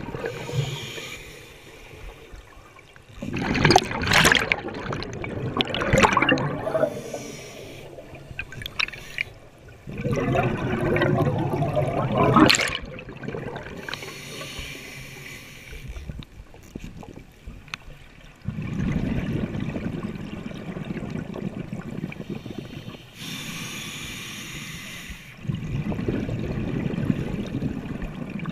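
A scuba diver breathing through a regulator underwater: exhaled bubbles gurgle and rumble out in several long bursts, with quieter hissing between them.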